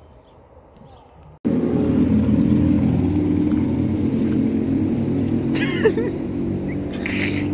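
A car's engine and road noise, a steady low drone that starts abruptly about a second and a half in after a quiet start, with a brief high squeak near the end.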